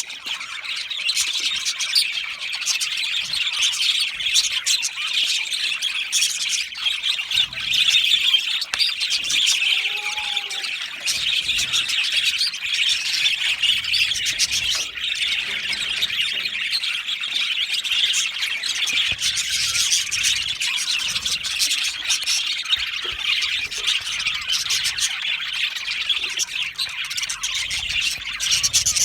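A flock of budgerigars chattering continuously, many overlapping high chirps and warbles at once.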